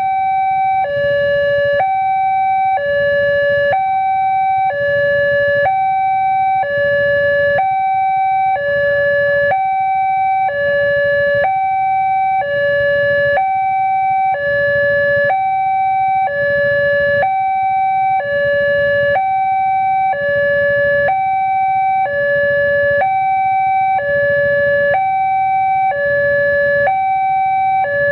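Railway level-crossing warning siren sounding a loud two-tone hi-lo alarm, switching between a higher and a lower tone about once a second, steady and unbroken.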